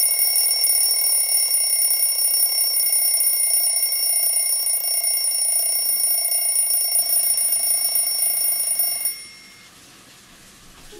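An alarm sounding with a steady, high-pitched tone that stops abruptly about nine seconds in.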